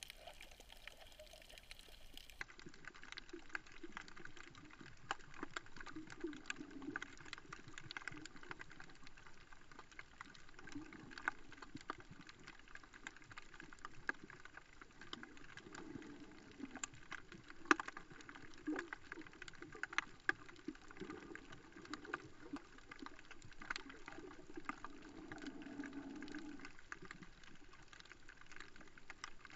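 Faint underwater sound picked up through a camera's waterproof housing: a steady muffled wash of water with many scattered sharp clicks and crackles.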